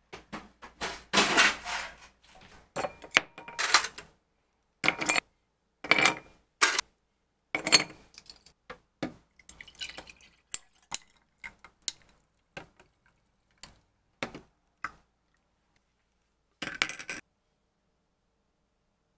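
Ice cubes clinking against a glass and liquid being poured over them, in a string of separate clinks and short knocks, the loudest in the first few seconds.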